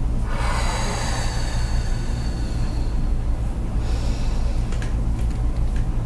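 A person breathing out long and heavily for about three seconds, then a short, sharp breath about four seconds in, over a steady low hum; a few faint ticks near the end.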